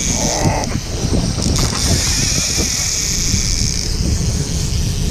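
Wind buffeting the microphone over the rumble of a moving charter boat, with a steady high-pitched whine through the middle and the ticking of a fishing reel being cranked as a salmon is fought on a bent rod.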